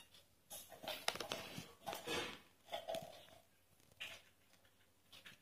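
Soft rustling and scraping of cotton cloth and a wooden embroidery hoop being handled, with thread drawn through the fabric, in several short irregular bursts.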